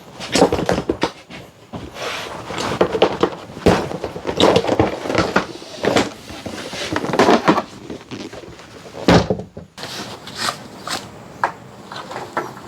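Irregular clunks, knocks and rattles of an old ATV's parts and plastics being handled and moved, with a few sharper thumps spread through.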